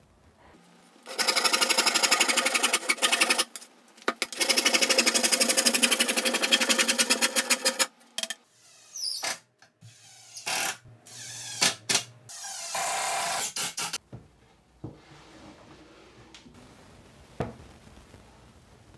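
Jigsaw cutting 1/2-inch plywood in two long passes, the blade's strokes making a fast, even buzzing rattle. It is followed by a cordless drill/driver driving screws in short bursts.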